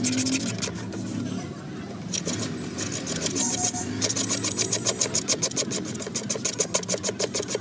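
Softened old coating being peeled by hand off a plastic headlight lens: a crackling, sticky tearing in quick regular pulses, about six a second, easing off briefly about a second and a half in and coming back strongest in the second half.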